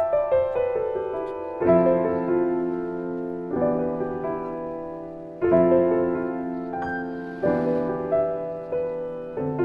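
Background solo piano music: soft, slow chords and melody notes struck every second or so and left to ring.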